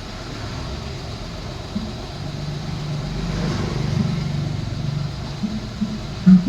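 A motor vehicle engine running, growing louder toward the middle and easing off near the end.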